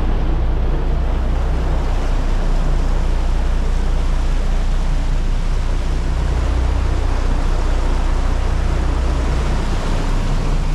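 Steady low drone of a fishing boat's engines running underway, with a constant rush of wind and water.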